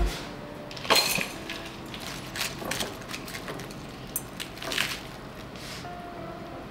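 Salad being tossed with plastic tongs in a glass mixing bowl: the tongs clink and scrape against the glass as the leaves are turned, with a louder knock about a second in and scattered clicks after.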